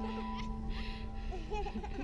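Background music: a long held note under a sliding, voice-like melody, with a repeating hiss that works as the beat.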